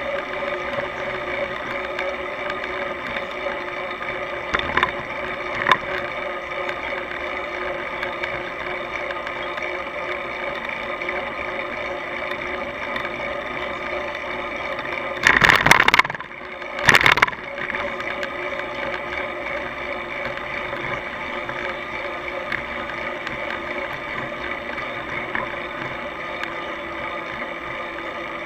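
Steady riding noise from a bicycle on the road, a constant hum with even tones over it, picked up through a bike-mounted camera. Two loud, short jolts of noise come a little over halfway through, about a second and a half apart.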